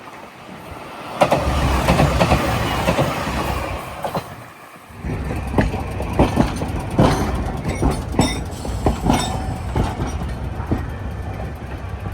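A train running on the rails: wheel and track noise builds up. After a brief drop about four and a half seconds in, it goes on as a run of sharp, uneven clacks of wheels over rail joints.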